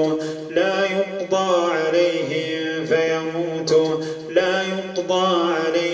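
A man reciting the Quran in a slow, melodic chant, drawing out long held notes with short breaks between phrases.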